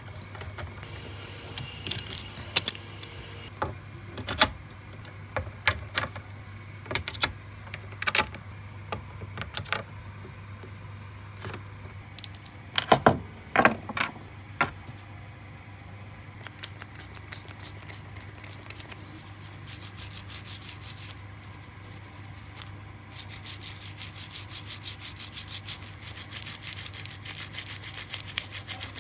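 Scattered clicks and knocks of small metal guitar hardware being handled on a wooden workbench, with a quick clatter near the middle, over a steady low hum. About two-thirds of the way in, a toothbrush starts scrubbing a metal guitar bridge in rapid strokes.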